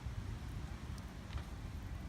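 Low wind rumble on the microphone, with a couple of faint clicks about a second in.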